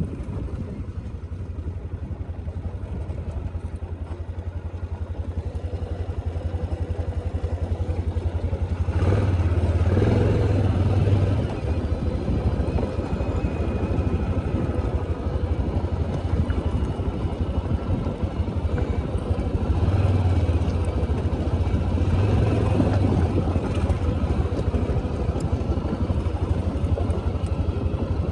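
ATV engine running steadily while riding on a trail, getting louder twice as the throttle is opened, about a third of the way in and again past the middle.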